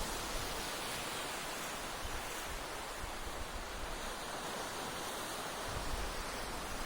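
Sea waves washing onto a beach, a steady hiss of surf, with wind and a low rumble of wind on the microphone growing near the end.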